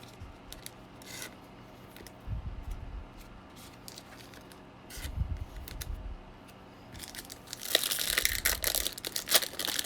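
Wrapper of a 2021 Bowman baseball card pack being torn open and crinkled, a loud dense crackle starting about three-quarters of the way through. Before it, only light handling ticks and a couple of low dull thumps.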